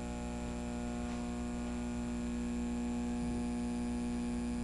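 Steady electrical hum made of many evenly spaced tones, with a faint high whine joining about three seconds in.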